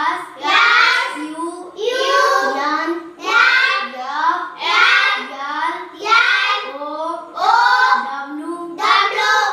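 A boy's voice reciting flower names in a sing-song chant, about seven names in a steady rhythm, each a short rising-and-falling phrase.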